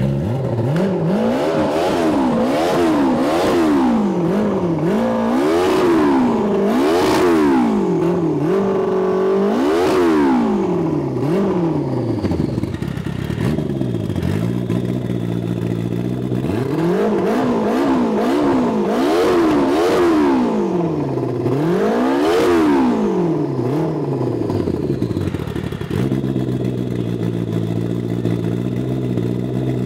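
Snowmobile engine on a bare, stripped-down chassis being revved again and again, its pitch climbing and falling about once a second. It settles to a steady idle for the last few seconds.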